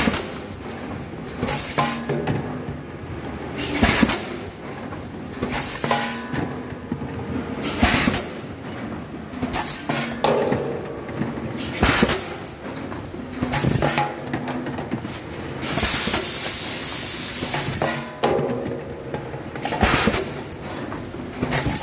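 Pneumatic PET bottle blow-moulding machine running: a sharp clack and blast of compressed air about every two seconds as it cycles, with one longer hiss of air lasting about two seconds about three quarters of the way through.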